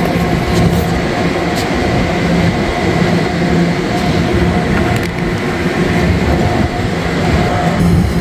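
Steady, loud drone of running machinery: a low hum with a few steady higher tones over a constant rushing noise, with a few faint clicks.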